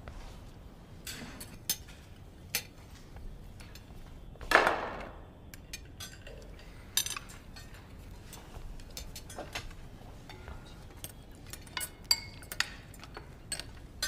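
Cutlery and dishes clinking at a dinner table: scattered light clicks and clinks, with one longer, louder scrape about four and a half seconds in.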